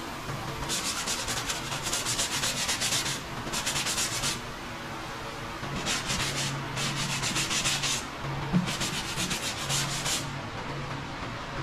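Hand sanding of cured body filler on a car's rocker panel: quick back-and-forth strokes of sandpaper in four spells, with short pauses between.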